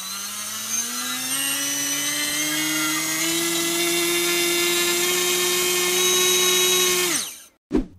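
Xhover 2204 2300KV brushless motor spinning a DAL 5045 propeller on a thrust stand: a whine rising in pitch as the throttle is brought up, holding steady at hover thrust of about 150 grams, then winding down sharply near the end.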